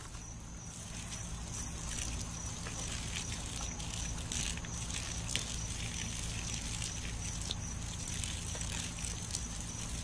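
Water running from a garden hose and splashing onto grass, a steady trickling and spattering over a low steady hum.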